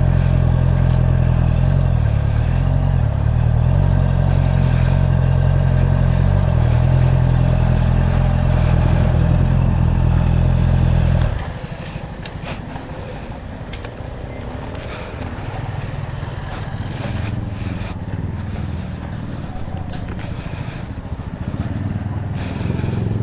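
Honda CB650F's inline-four engine running steadily at low revs, then switched off about eleven seconds in. The quieter outdoor background that follows has a few small clicks.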